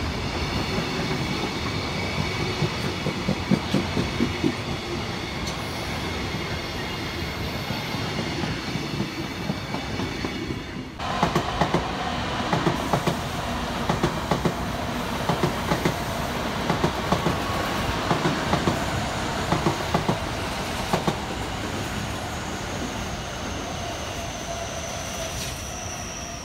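Container freight train rolling past below, its wheels clattering over rail joints with a thin, steady high ringing. About 11 seconds in the sound breaks off and a train passing beneath takes over, its wheels giving sharp, evenly spaced clacks over the rail joints.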